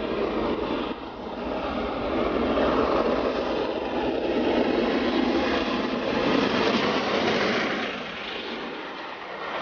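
LNER V2 'Green Arrow', a three-cylinder steam locomotive, running at speed with its train: a steady, dense roar of exhaust and running gear that eases somewhat near the end.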